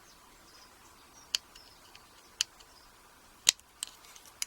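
A few small, sharp metallic clicks spaced about a second apart, the loudest near the end, as the retaining clip is worked off the back of an ABUS 72/40 padlock's single-piece core.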